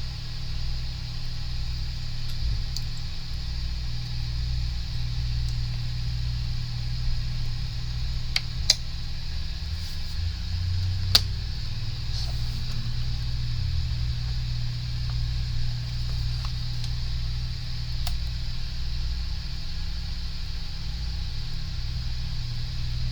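A steady low machine hum, with a few light clicks in the middle.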